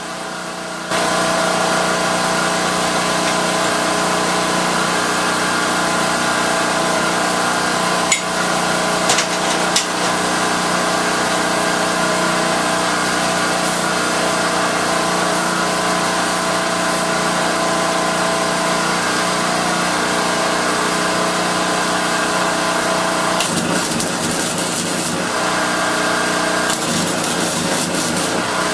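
A motor hums steadily at one pitch, switching on about a second in. Near the end, two stretches of flux-core wire welding crackle over it.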